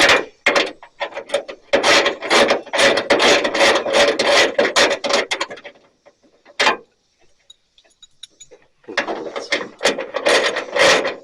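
Hand ratchet wrench clicking in quick runs as bolts are turned, with a short pause about two-thirds of the way through before the clicking starts again.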